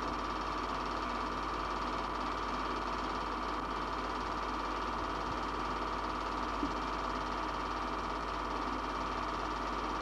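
Film projector mechanism running steadily: an even, fast mechanical clatter over a low hum and hiss.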